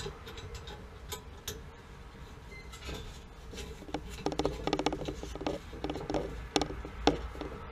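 Scattered light clicks and taps, with a pulsing creak or rub from about halfway through, as hands work at an overhead copper water pipe.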